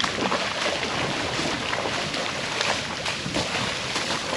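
A steady rush of splashing and sloshing in shallow lagoon water around a fishing net, with many small splashes from fish thrashing in the net.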